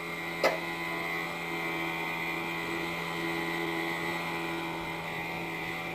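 The outboard engine of a D-class inflatable lifeboat running steadily at speed. A short sharp click comes about half a second in.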